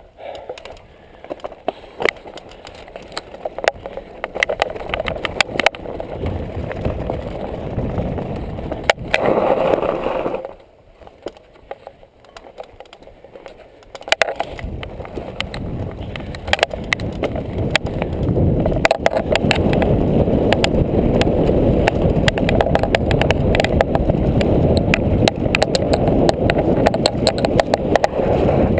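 Mountain bike riding down a rocky dirt singletrack: tyres rolling over dirt and stones while the bike rattles with frequent sharp knocks and clicks. It eases off briefly about ten seconds in, then grows louder and steadier with a low rush as speed builds.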